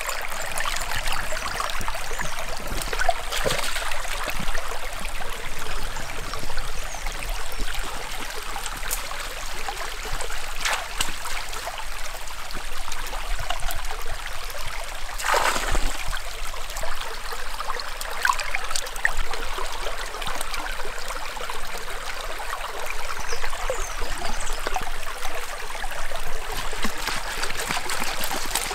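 Steady flowing water, with a few faint clicks and one sharper knock about halfway through.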